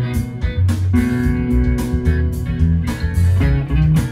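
Fender Stratocaster electric guitar improvising a Mixolydian jam through an amp, notes and chords ringing, over a backing track with a low bass line and a steady drum beat.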